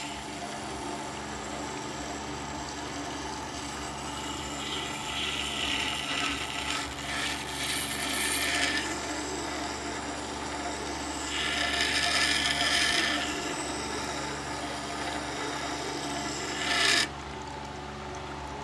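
WEN water-cooled wet grinder's stone turning with a steady hum while a shear blade in a scissor jig is slid across it, giving rasping grinding in several passes, loudest about a third of the way in. The grinding cuts off sharply near the end.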